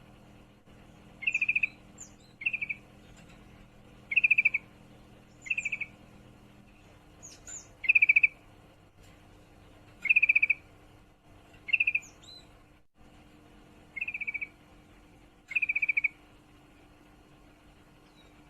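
Female yellow-vented bulbul (trucukan) repeating short, rapid trilling calls, about nine of them, one every one to two seconds. This is the call a female in breeding condition gives to draw a male.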